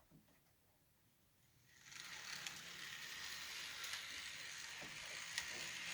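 N scale Bachmann Spectrum diesel locomotives running along model track. A steady light whir from the small motors and wheels on the rails starts about two seconds in, with a few faint clicks.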